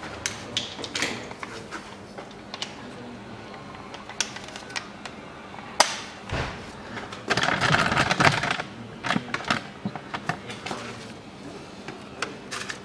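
Scattered clicks and knocks of tools being handled, with a burst of about a second from a cordless impact wrench a little past the middle as it spins a 12 mm bolt on a manual gearbox oil pan.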